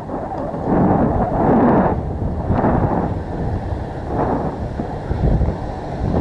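Wind buffeting a helmet camera's microphone and inline skate wheels rumbling on asphalt, a loud low rumble that swells about every second.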